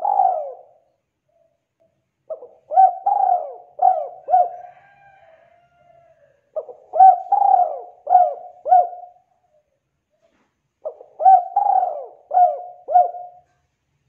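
Spotted dove (tekukur) cooing: a short tail of one phrase at the start, then three repeated phrases of about five coos each, about four seconds apart.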